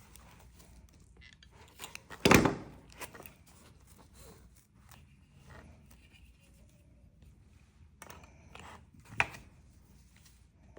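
Book being pressed between two rulers and clamped: a loud knock a little over two seconds in, small clicks and rubs, and another sharp knock near the end.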